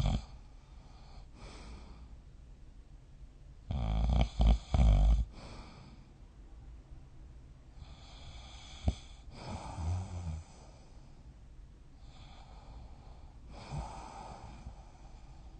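A person snoring in deep sleep, one snoring breath every four seconds or so. The loudest snore comes about four seconds in, broken into several pulses, and a short sharp sound falls about midway.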